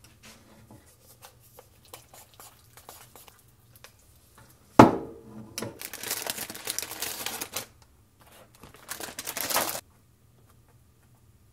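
Light clicks of kitchen items being handled, then a sharp knock with a short ring about five seconds in, followed by two stretches of crinkling from the plastic bag of aburaage (fried tofu pouches) as it is handled and opened.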